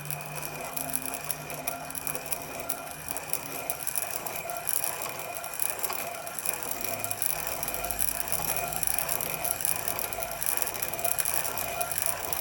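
Piston ring filer grinding down the end of a piston ring to widen its end gap: a steady rasping with many fine clicks that stops abruptly at the end.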